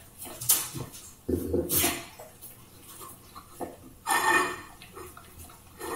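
German shepherd licking and eating crumbs from a small black plate on a tile floor: wet licking and chewing with the plate knocking and scraping on the tiles. It comes in irregular bursts, loudest about a second and a half in and again about four seconds in.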